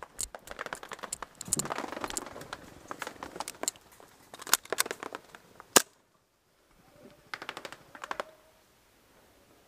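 Airsoft guns firing: a string of sharp cracks in irregular bursts, some rapid. The sound drops out briefly a little past halfway, then a few more shots follow.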